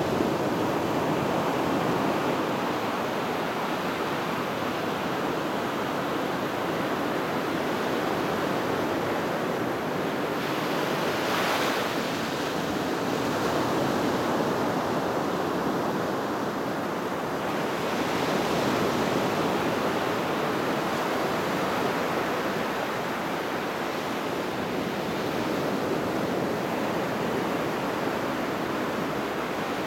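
Ocean surf breaking and washing up a sandy beach: a continuous rushing wash that swells and eases gently as each wave comes in.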